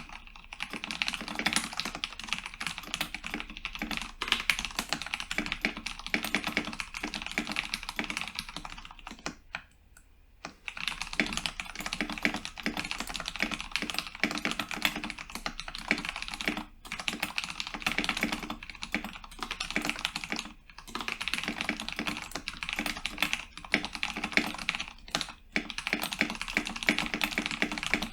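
Steady, fast typing on a modded Cooler Master MasterKeys Pro S mechanical keyboard with Cherry MX Brown switches, a dense run of key clicks that stops for about a second around a third of the way in.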